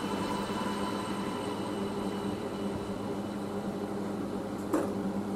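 Steady electrical hum of workshop equipment over a faint hiss, with a single short click near the end.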